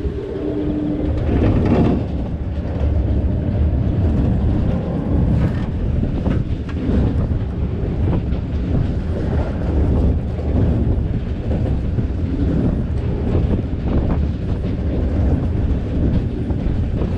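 Amusement ride in motion, recorded from a seat on board: a steady, loud low rumble and rattle of the ride's running machinery. A steady hum fades out about a second in.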